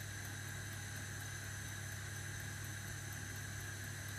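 Steady low hum with an even hiss over it: constant kitchen background noise around a gas hob with two burners lit, with no clear sound of the stirring.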